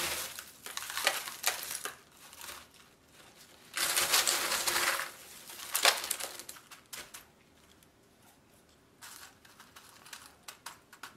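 Coarse bark-and-pebble orchid potting mix rattling and crunching as hands scoop it in an aluminum foil tray and fill a small plastic pot, in irregular clicks with a longer rustling stretch about four seconds in.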